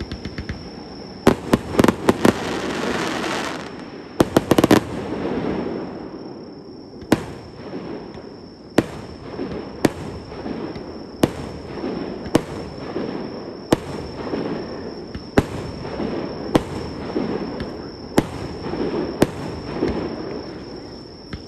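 Fireworks shells bursting in the air: a quick string of cracks with crackling in the first few seconds, then single bangs about every second and a half.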